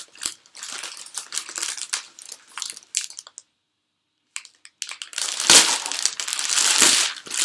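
Plastic mailer bag crinkling and rustling as hands rummage in it and pull it open. It breaks off for about a second in the middle, then comes back louder near the end.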